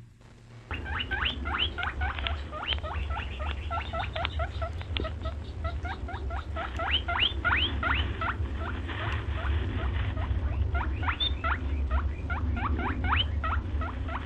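Small young animals giving rapid, high-pitched rising squeaks, several a second, in runs with short pauses, over a steady low hum.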